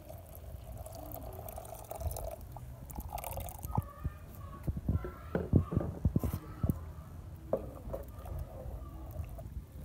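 Coconut milk pouring from a plastic bowl into a pot of matapa, cassava-leaf stew. This is followed by a run of short wet splashes and knocks as a wooden spoon stirs the pot, loudest about six seconds in.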